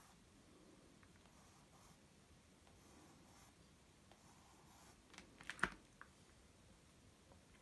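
Pencil sketching on sketchbook paper: faint, short scratchy strokes, then a few sharp clicks about five and a half seconds in.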